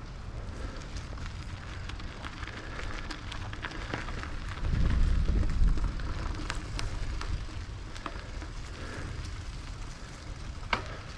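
Tyres of a rigid Raleigh Redux bike rolling over a gravel and dirt trail, crackling with many small clicks and rattles. Low wind rumble on the microphone runs throughout and swells for about a second near the middle, and there is one sharp click near the end.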